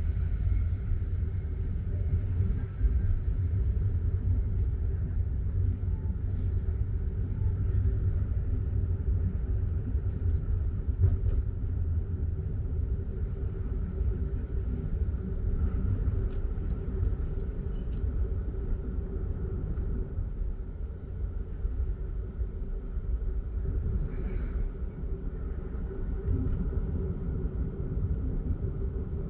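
Steady low rumble of a car driving along a city road, engine and tyre noise heard from inside the cabin.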